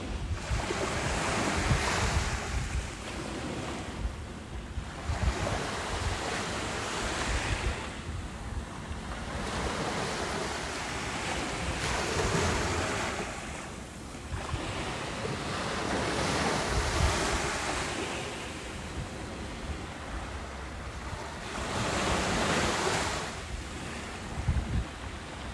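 Ocean surf: waves breaking and washing in, swelling and fading about every five seconds, with wind buffeting the microphone.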